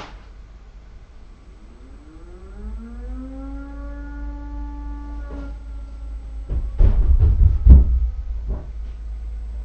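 Fire brigade call-out siren winding up in pitch from about a second and a half in to a steady wail, then dropping back in level. A loud burst of low rumbling and knocks about seven seconds in is the loudest sound.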